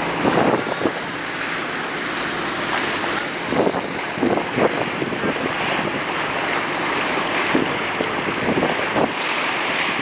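Wind buffeting the microphone over the steady rush of choppy sea water past a moving boat, with several irregular louder gusts.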